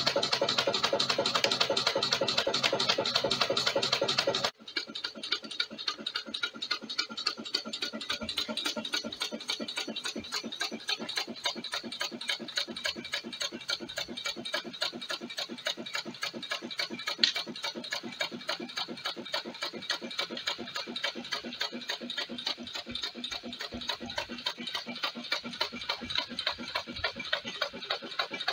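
Homemade wood-fired alpha Stirling engine running with a regular rhythmic beat from its pistons and crank. Louder for about the first four seconds, then it cuts suddenly to a quieter, steady rhythm that continues.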